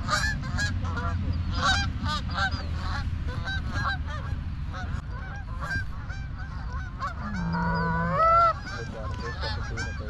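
Flock of Canada geese honking, many short overlapping calls, with one louder, longer rising call near the end.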